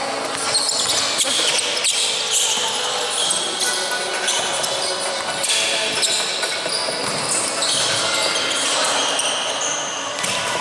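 Indoor basketball game: a ball bouncing on a hardwood court, with many short high squeaks from players' shoes and scattered voices, echoing in a gym.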